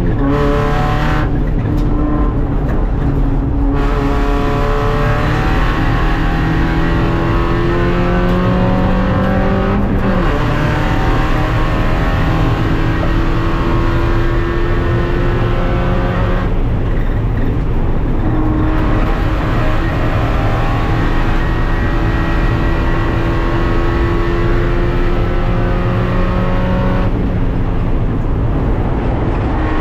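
Race car engine heard from inside its stripped, caged cabin, running hard at speed on track. The revs climb slowly, dip about ten seconds in and climb again, and the engine note thins out briefly about seventeen seconds in and again near the end.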